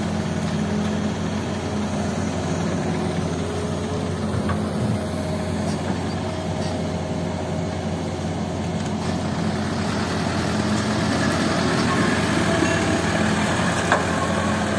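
Heavy diesel engines running steadily: a Hitachi hydraulic excavator at work loading gravel and a dump truck idling. The engine sound gets louder about ten seconds in.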